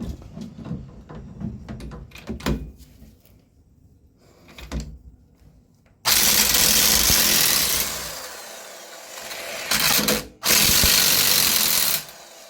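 Scattered metal clicks and knocks of tools on the truck's suspension, then a power tool starts suddenly about six seconds in and runs loudly on the leaf spring bolts, easing off, stopping for a moment and running again before cutting out near the end.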